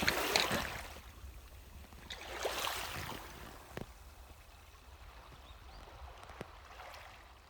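Seawater sloshing and splashing, swelling twice, then a lower steady wash with a few small knocks.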